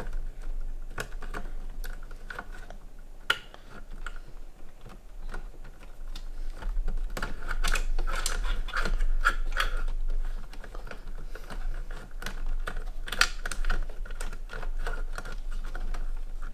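Cables and plastic clips being handled and fitted inside a PC case: irregular small clicks and rustling, busier in the middle.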